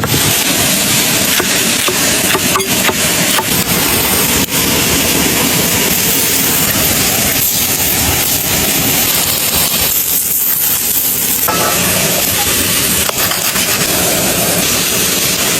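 Steady rushing of running water, loud and continuous, with a few faint clicks over it.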